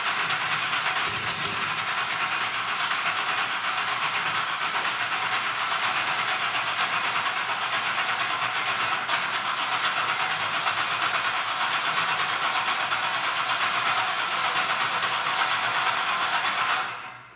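Pulling-truck engine being cranked over by its starter without catching: a loud, steady whirring hiss that cuts off abruptly near the end.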